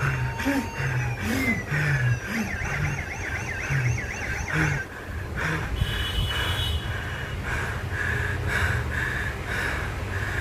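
Electronic siren-and-alarm sound effect: a tone sliding up and down, then a fast wavering wail, then a steady run of short beeps about three a second from about five seconds in. A low pulsing beat runs underneath for the first few seconds.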